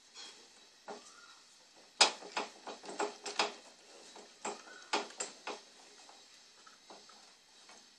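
Sharp clicks and knocks of metal parts of the suitcase vehicle's frame being handled and worked loose, in two quick clusters, one about two seconds in and another around five seconds, with a short squeaky scrape in between.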